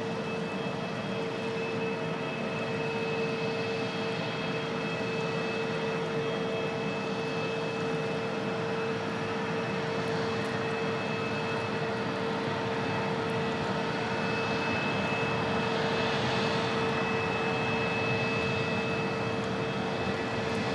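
Jet airliner engines running steadily: a constant drone with a steady high whine, growing a little louder near the end.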